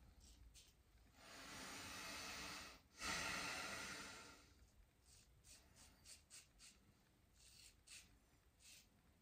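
A long breath in and a louder breath out through the nose, followed by a run of short, faint scraping strokes of a safety razor through lathered stubble.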